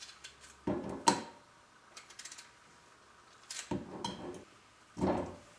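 Potato chunks cut off with a knife and dropping onto the bare bottom of an enameled cast-iron Dutch oven: a knock about a second in, a few more near four seconds, and another near five seconds.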